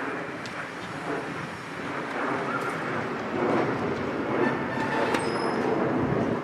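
Steady rushing, rumbling noise, with a few faint sharp knocks; the clearest knock comes about five seconds in.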